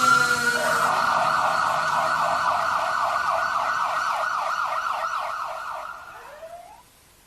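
Emergency-vehicle siren in a fast yelp, sweeping up and down several times a second. It fades out near the end with one short upward sweep.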